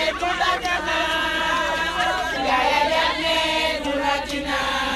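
A crowd of voices singing and chanting together in unison, several pitches layered and held.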